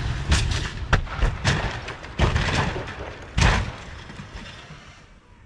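A car rolling over on grass, its body slamming into the ground in a string of heavy thuds over about three and a half seconds, then the noise dies away.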